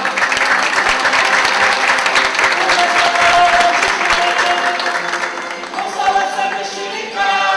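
Audience applauding, thinning out after about five seconds, with a held musical note sounding over it. Near the end, music starts up.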